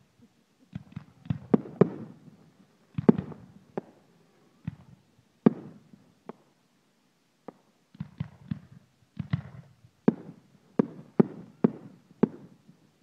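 Finale of 1.3G display fireworks: aerial shells of 3 inches and under bursting in rapid, irregular succession. Each sharp bang trails off in an echo, and they come in clusters with a couple of short lulls between them.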